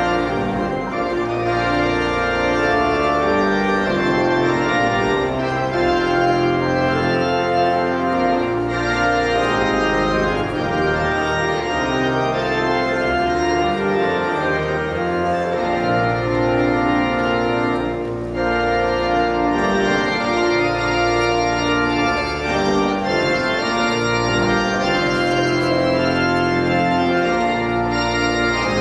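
Organ playing slow music in sustained chords over held bass notes.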